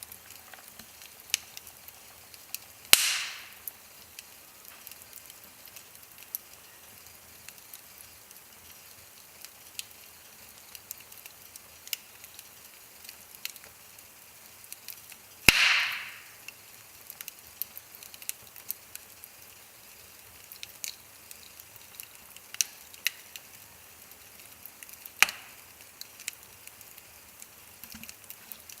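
Wood fire burning in a fireplace: scattered small crackles throughout, with three loud pops spread across it, the first two each trailing off in a brief hiss.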